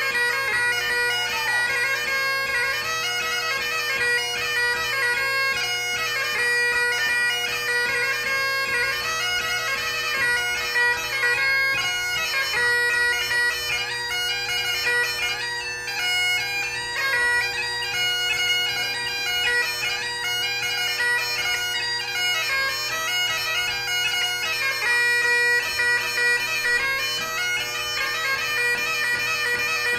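Great Highland bagpipe played solo: the drones hold one steady chord underneath while the chanter plays a quick, constantly moving melody.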